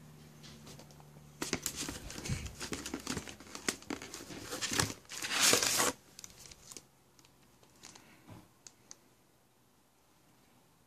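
Paper and cardboard rustling and crinkling as an art print is pulled out of a cardboard mailer box: a dense run of scrapes and crackles lasting about four seconds, loudest just before it stops, followed by a few soft taps.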